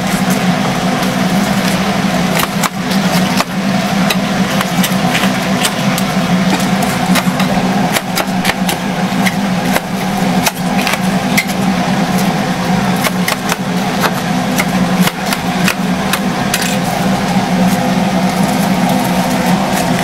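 Metal tongs clicking and scraping against a wire cooling rack as whole fried chickens are lifted and stacked, over a steady low machine hum.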